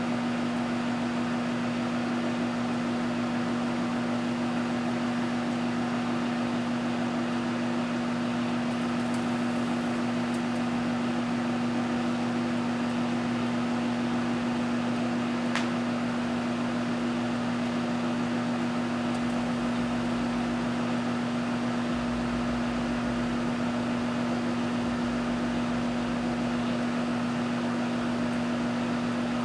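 Microwave oven running, heating a frozen pizza: a steady electrical hum over the blowing of its fan, with one faint tick about halfway through.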